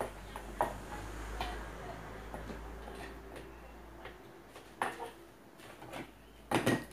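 Scattered clicks and knocks as pumpkin pieces and a knife are handled in a metal bowl on the table, with a louder double knock near the end.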